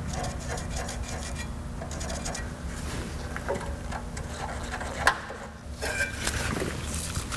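A transmission cooler being shifted and pressed by hand against a truck's radiator support: irregular rubbing and scraping with short knocks and clicks, the sharpest about five seconds in, over a steady low hum.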